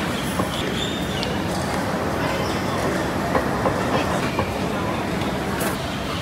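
Busy hawker-centre ambience: indistinct chatter of many people over a steady rumble, with scattered light clinks of dishes and utensils.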